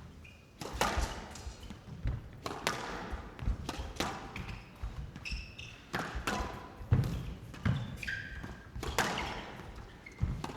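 A squash rally: the ball struck by rackets and hitting the court walls in a series of sharp knocks, with short high squeaks of shoes on the court floor between them.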